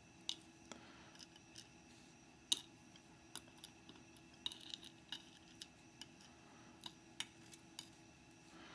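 Faint, irregular small metallic clicks and ticks of a Mauer NW4 euro cylinder lock being taken apart, its pins, springs and tools tapping against each other; the sharpest click comes about two and a half seconds in.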